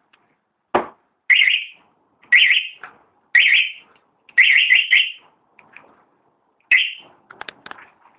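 Aftermarket motorcycle remote-start/alarm siren chirping in short, high-pitched bursts, about one a second, then a quick run of several, and one more near the end. A sharp click comes just before the first chirp.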